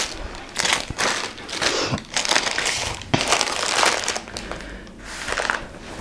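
Packaging crinkling and rustling in irregular handfuls as it is handled and opened.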